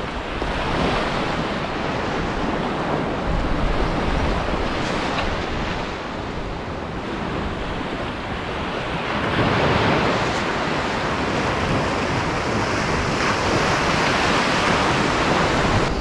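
Small sea waves breaking and washing up a sandy beach in a steady rush, swelling louder about two-thirds of the way through, with some wind buffeting the microphone.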